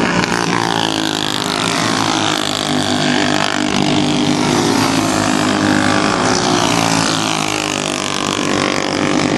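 Several racing engines running together, their pitches slowly rising and falling as they pass.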